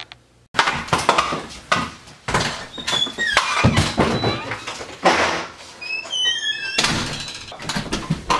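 A scuffle on a wooden floor: a run of irregular thumps and knocks, with a cluster of short high squeaks about six seconds in.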